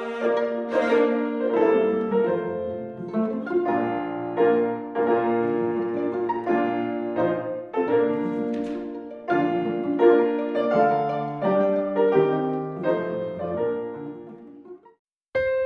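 Background piano music, note after note, fading out near the end; after a moment's silence a new piano piece starts just before the end.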